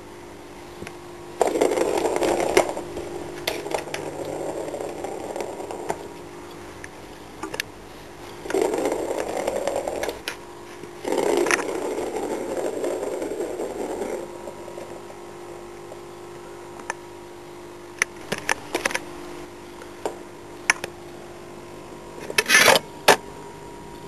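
Plastic ball rolling around the circular plastic track of a Bergan Turbo Scratcher cat toy, batted along by a cat's paw: a rolling rumble in three spells of a few seconds each, then scattered clicks and knocks as the ball is tapped and hits the track, the loudest near the end.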